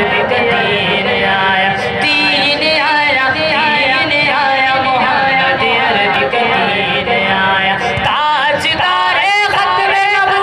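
Loud singing by several voices over music, the melody wavering and sliding without a break.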